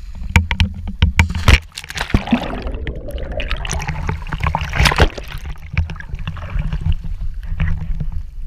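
A person jumping feet-first into deep water, heard through a waterproof action camera held on a pole: knocks and thumps during the first second and a half, a plunge, then rushing, churning water for a few seconds as the camera goes under and comes back up, with splashing and water sloshing against the camera as she floats.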